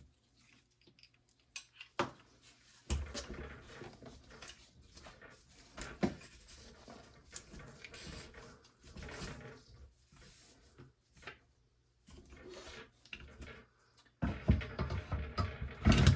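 Handling noise from cleaning an AR-15 barrel: scattered clicks and knocks of metal parts with stretches of rubbing and scraping, a sharp click about two seconds in, and louder rubbing near the end.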